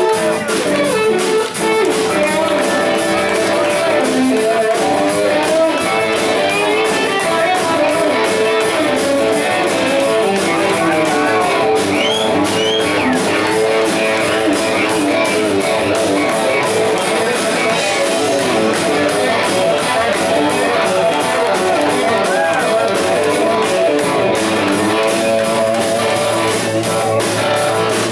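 Live rock band playing loudly, with electric guitars to the fore.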